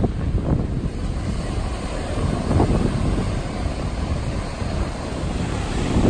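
Wind buffeting the microphone in gusts, over the wash of surf breaking on the shore.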